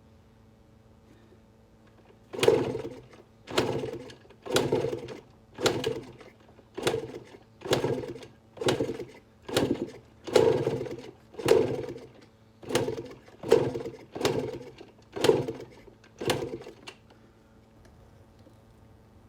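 Rebuilt 2006 Yamaha YZ125 single-cylinder two-stroke being kick-started, about thirteen kicks in quick succession, roughly one a second; each kick spins the engine over in a short burst that dies away without it running on. The choke is off.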